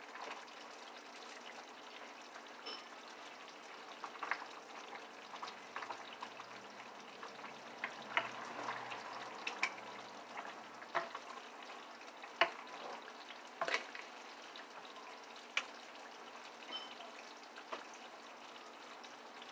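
Steady hiss of pots cooking on the stovetop, with scattered sharp clinks of utensils against cookware.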